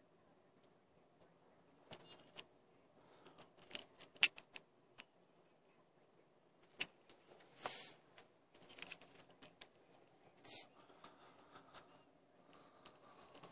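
Faint, irregular clicks and taps, with two short rustling hisses in the middle, over a low hum inside a slowly moving car's cabin: handling and rattle noise rather than any clear engine or traffic sound.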